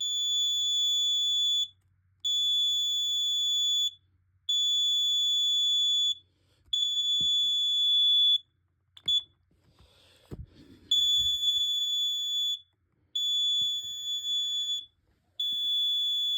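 A plug-in gas alarm sounds a loud, high-pitched alarm of long beeps, each about a second and a half, with short pauses between. It has been set off by the gas it is testing for. About nine seconds in the beeping breaks off for a short chirp and a few knocks, then starts again.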